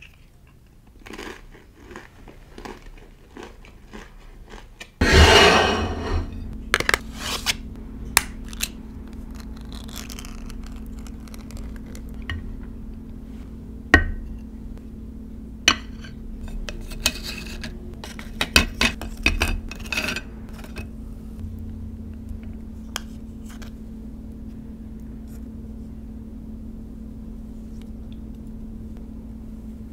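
Crisp cracker crunching for the first few seconds, then a sudden loud rush about five seconds in. After that come clinks, knocks and scrapes of a ceramic plate, a metal sardine tin and a spoon and fork as the snack plate is put together, over a steady low hum.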